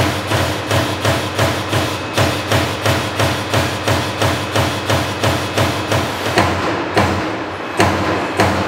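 Amada AE 255 NT turret punch-nibbling machine punching sheet metal, about three sharp strikes a second in a steady rhythm over a steady machine hum. About six seconds in the strikes turn slower and uneven.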